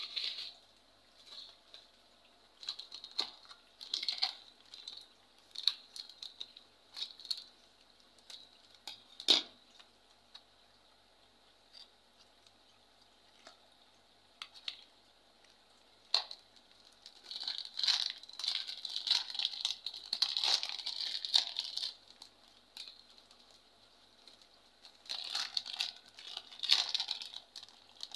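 Plastic and foil packaging crinkling and rustling as it is handled and opened by hand, with scattered light clicks. There is a sharp knock about nine seconds in, and longer stretches of heavier crinkling in the second half.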